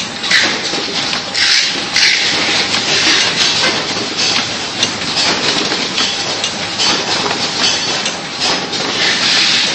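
Automatic biscuit cartoning machine running: a steady mechanical clatter from its chain conveyors and box-folding mechanism, with short bursts of hiss recurring every second or so.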